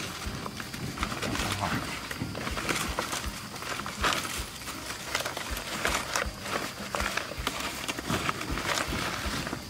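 Irregular knocks and clicks over a background of rustling, several a second and unevenly spaced, as food is handled and prepared by hand.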